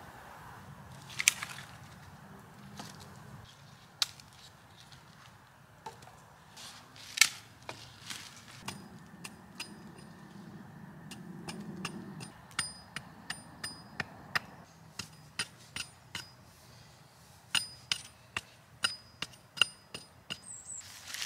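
Steel hatchet chopping at the end of a wooden stick to carve it to a point for a stake. A few single knocks come in the first half. Then a quick run of short strikes follows, about two or three a second, each with a faint metallic ring.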